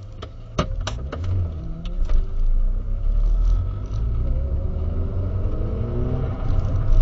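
Skoda Octavia 1.8T's turbocharged four-cylinder engine, fitted with a Supersprint exhaust and K&N intake, pulling hard from low speed, heard from inside the cabin. The engine note climbs in pitch, drops at a gear change about four seconds in, then climbs again. A few sharp knocks come in the first second.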